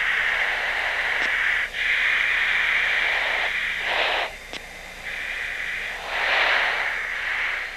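Cockpit radio static: a band of hiss that switches off and on several times, with two broader rushes of noise about four and six and a half seconds in.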